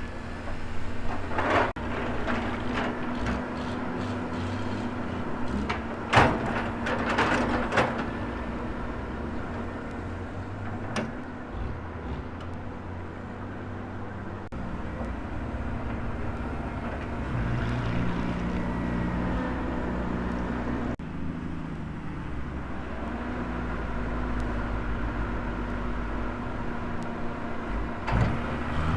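Volvo excavator's diesel engine running under working load, its low drone shifting as the hydraulics work, with a few short noisy bursts of the bucket scraping and dumping sand, about a second in, around six to eight seconds in, and near the end.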